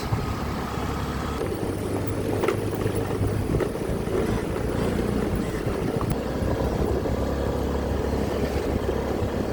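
Vehicle driving along: a steady low engine drone with road and wind noise, and a few faint clicks.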